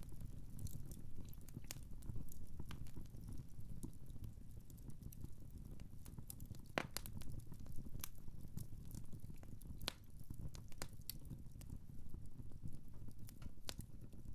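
Wood fire crackling in a fireplace: irregular sharp pops and snaps over a low, steady rumble. One of the louder pops comes about seven seconds in.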